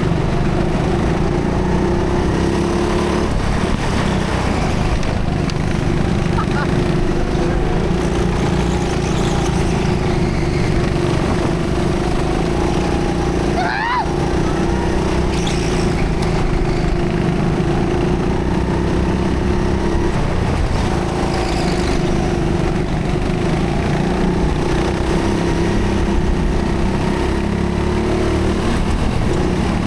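Go-kart heard from its own onboard camera while racing round an indoor track: a loud, steady running drone with road and air noise, and a brief high squeal about fourteen seconds in.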